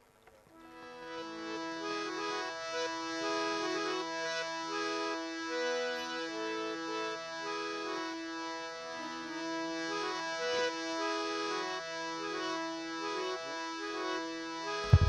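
Harmonium playing a slow melody over a steady held drone note, fading in about half a second in. A loud low thump comes right at the end.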